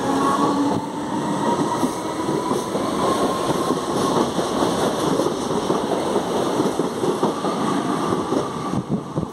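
Alstom-built CPTM Series 2070 electric train running, its traction motors giving a faint whine that rises slightly over the first couple of seconds. Under it are steady rolling noise and repeated clicks of the wheels on the track.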